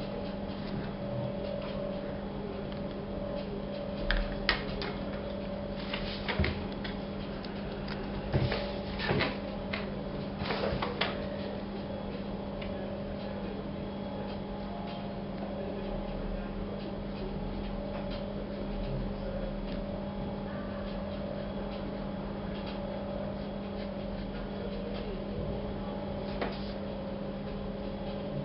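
Steady low electrical hum, with a cluster of sharp clicks and knocks about four to eleven seconds in and one more near the end.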